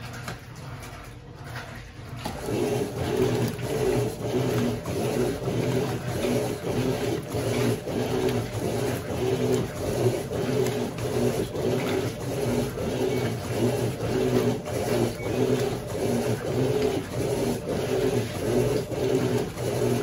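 Electrolux LQ11 Turbo Flex top-load washing machine starting to agitate again about two seconds in, after a short pause. Its motor and agitator churn the wash water in a steady back-and-forth rhythm. It is on program C, its most vigorous agitation.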